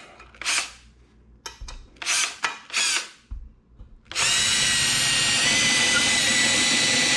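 A few short noises in the first seconds, then a power drill drives a screw with a washer into the wall stud, running steadily at an even pitch for about four seconds until the end.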